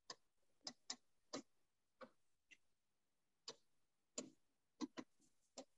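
About a dozen faint, sharp clicks and taps at irregular intervals from a stylus striking a touchscreen display as an equation is handwritten on it.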